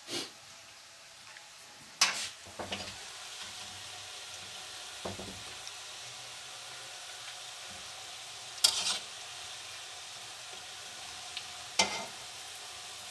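Pakoras deep-frying in hot oil in a karahi, a steady sizzle, broken a few times by sharp clacks of metal tongs against the pan, about two seconds in and twice near the end.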